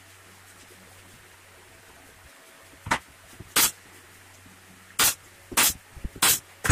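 Pneumatic nail gun firing into MDF: about six sharp shots, each a short pop with a puff of air, starting about three seconds in and coming at irregular gaps of half a second to a second and a half.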